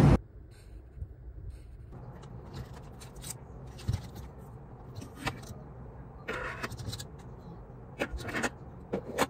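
Plastic hair claw clips clicking and clattering in short, scattered handfuls as they are picked up and handled, over a low steady hum.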